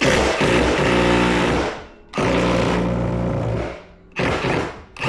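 Impact wrench running in bursts to loosen a Miata's seat-slider bolts: two long runs of a second and a half each, then two short blips near the end.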